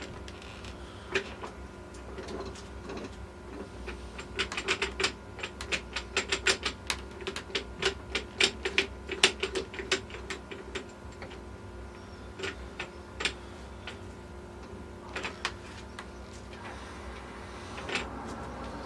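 Steel gears and parts of a T96 transmission clicking and clinking as they are wiggled by hand into mesh: a quick run of sharp clicks in the middle, then scattered ones.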